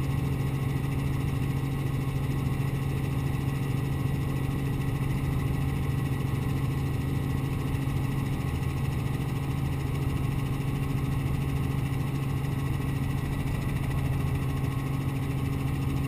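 Robinson R44 helicopter in flight, heard from inside the cabin: a steady, unchanging drone of its six-cylinder Lycoming piston engine and rotors, with a strong low hum.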